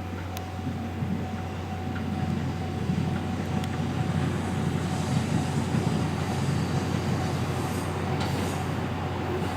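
Kiya 95 'Doctor Tokai' track-inspection train running on the rails, its rumble growing louder after the first couple of seconds over a steady low hum. A few faint clicks, and a brief high wheel squeal about eight seconds in.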